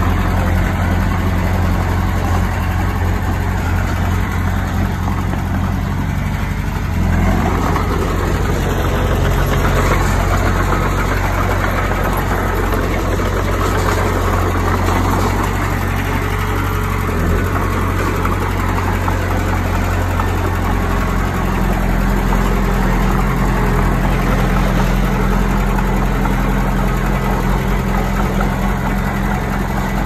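Diesel engine of heavy earthmoving machinery running steadily, with a rougher, louder stretch from about seven to sixteen seconds in.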